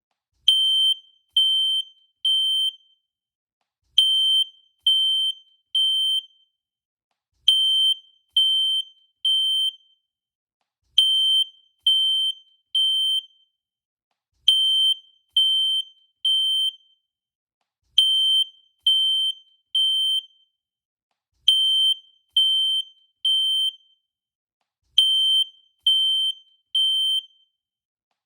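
Fire alarm sounding the temporal-three evacuation pattern. It gives three high-pitched beeps of about half a second each, then pauses for about a second and a half, and repeats steadily.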